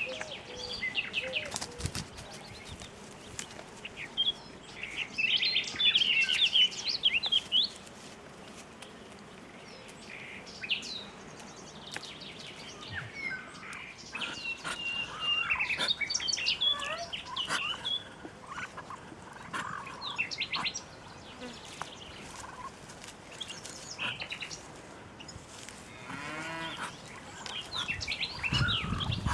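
Songbirds chirping and singing in short, overlapping phrases, with a single drawn-out farm-animal call near the end.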